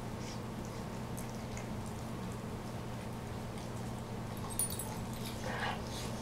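Two dogs licking each other's mouths and faces: soft wet licking and mouth sounds, with a couple of louder licks a little before the end, over a steady low hum.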